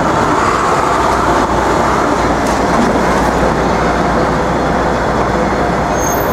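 Steady, loud city street traffic noise: a continuous wash of passing vehicles.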